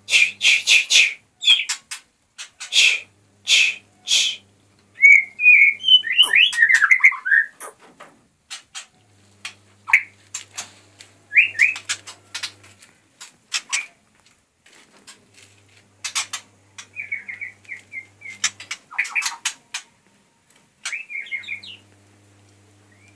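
White-rumped shama and other caged songbirds calling: a quick run of sharp clicking chips, then short whistled notes and further chips on and off.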